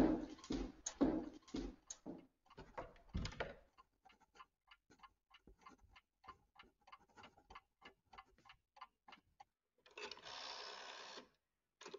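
A few heavier knocks, then a run of light mechanical clicks about three a second. Near the end comes a rasping whirr lasting about a second.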